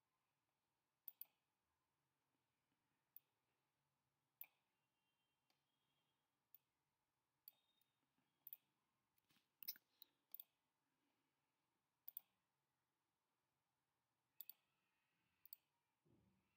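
Faint, irregular clicks of a computer mouse button, about a dozen, some in quick pairs, with a soft low thump near the end.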